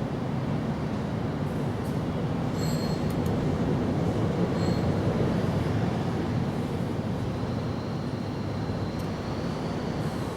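Steady low rumbling noise that swells slightly in the middle, with a few faint high ticks.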